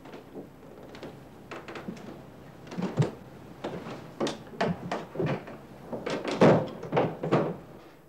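An irregular series of knocks and thumps, faint at first and then louder and closer together from about three seconds in. The loudest comes about six and a half seconds in, and the knocking stops abruptly near the end.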